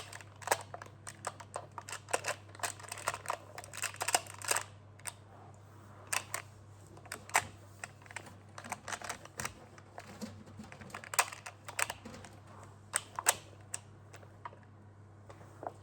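Plastic magnetic building tiles clicking and clacking together as they are picked up, snapped into place and set down, in an irregular run of sharp clicks, over a steady low hum.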